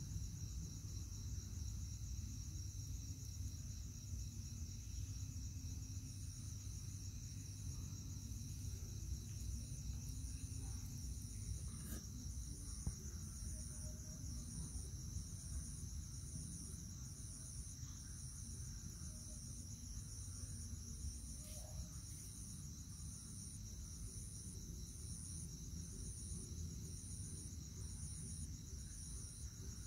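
Night insect chorus: a steady high trill, with another insect chirping rhythmically at a higher pitch a little more than once a second, starting a few seconds in. Under it runs a low, steady rumble.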